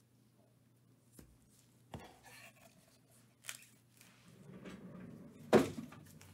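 An empty cardboard trading-card box handled in gloved hands: a few faint taps and a soft rustle, then one sharp thump near the end.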